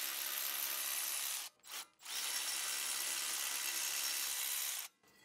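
Milwaukee Fuel cordless electric ratchet running, spinning out the front brake caliper carrier bolts with a steady whir. It stops for about half a second about a second and a half in, then runs again for nearly three seconds before cutting off.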